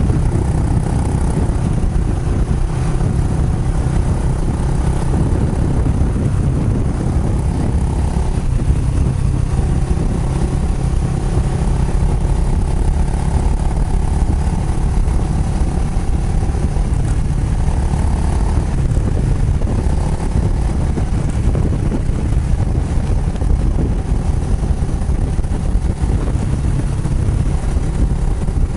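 Kawasaki Estrella's air-cooled single-cylinder engine running through an aftermarket Yamato muffler on the move, with its pitch shifting now and then under a heavy low rumble.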